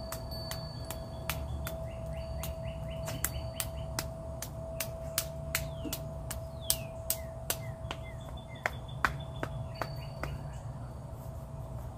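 Hands tapping along the arms and shoulders in self-massage body tapping: a quick, irregular run of sharp taps, about two or three a second. A steady tone is held underneath, and birds chirp a few times midway.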